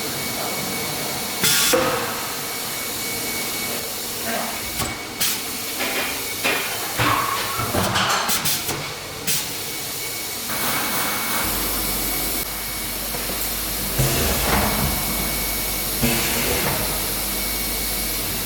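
Workshop machine noise, most likely a CNC wood router at work: a steady hissing run with irregular knocks and clatter throughout, and a low hum that comes in about two-thirds of the way through.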